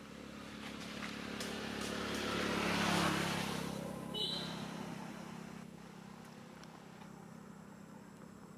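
A motor vehicle passing: its noise swells to a peak about three seconds in, then fades away. A short high chirp sounds just after four seconds.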